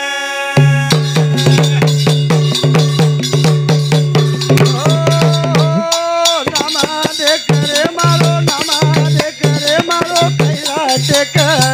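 Banjara devotional bhajan: a male voice singing over a fast, even rattle-and-percussion beat and a pulsing bass line.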